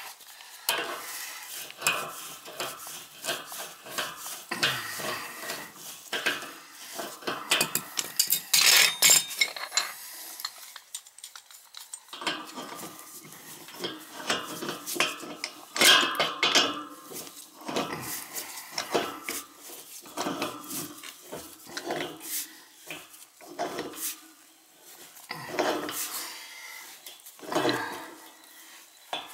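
A wrench working a pipe fitting at a cast iron radiator's connection: irregular metallic clinks, clicks and scrapes, busiest about a third of the way in, with a short lull just after.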